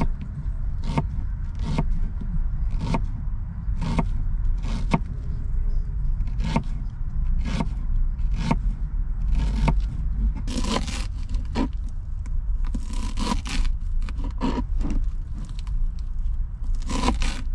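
Kitchen knife cutting on a plastic cutting board, slicing red onion with about one cut a second, then quicker runs of cuts while chopping herbs. A steady low hum runs underneath.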